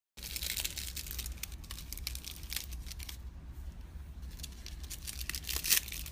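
Close, crackly rustling and scratching of a cat's fur and the carpet being rubbed as the cat rolls about and a hand plays with it, right by the phone's microphone. There is a brief dropout at the very start, and the crackling is densest just after it and again near the end.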